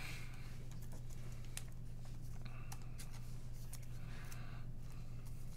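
Soft rustles and light clicks of trading cards and packaging being handled, over a steady low hum.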